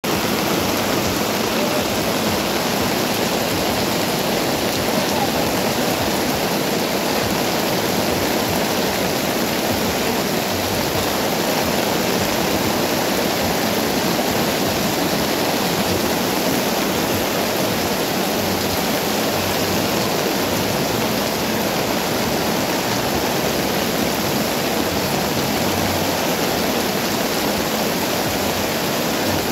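Heavy rain pouring steadily onto wet pavement and market awnings, a dense, even downpour with no let-up.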